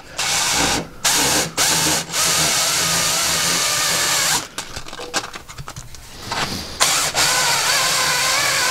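Cordless drill spinning a cone sanding tool (sandpaper on a 45-degree cone) against the top edge of a Yamaha 701 cylinder bore, chamfering it: a motor whine with abrasive hiss that wavers under load. It runs in a few short bursts, then for about two seconds, eases off, and runs again steadily near the end.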